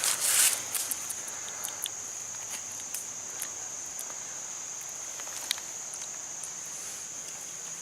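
A steady high-pitched insect chorus, with a brief loud rustle at the very start and scattered faint clicks and crackles.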